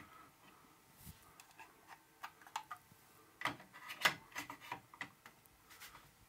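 Scattered light clicks and taps, a dozen or so at irregular intervals, as a smart meter is handled and fitted onto the DIN rail of a distribution board.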